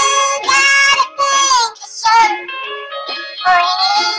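Background music: a high voice singing held, wavering notes in short phrases.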